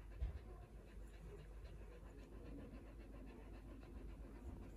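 Newborn Samoyed puppies breathing and snuffling faintly as they sleep, with a soft low bump about a quarter of a second in.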